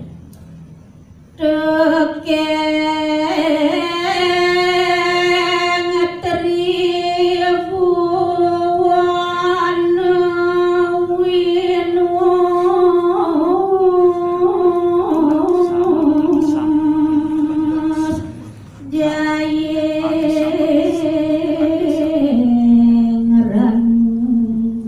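A woman's solo voice chanting a kakawin verse, unaccompanied, in slow long-held notes with ornamented turns. It runs as two phrases with a short breath about eighteen seconds in, and it settles onto a lower note near the end.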